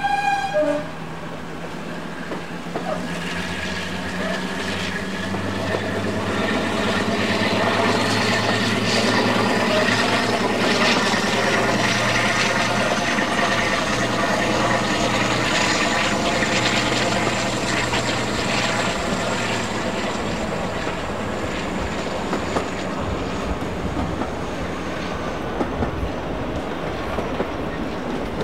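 Heritage diesel locomotive at work: a short horn note right at the start, then the engine working under load as the train runs past, with wheels clattering over the rail joints. A high whine rises and then slowly falls as the sound builds to its loudest in the middle and eases off towards the end.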